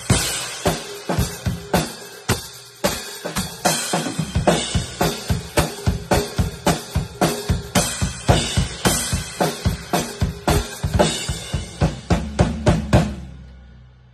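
Acoustic drum kit played hard and fast: bass drum, snare and crashes on a Zildjian effects cymbal with cut-out holes. The playing stops about thirteen seconds in and the cymbals ring away.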